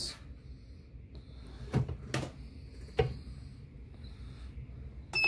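Heat press being clamped shut by its lever handle: a few short knocks and clicks from the handle and platen mechanism, with a sharper click near the end.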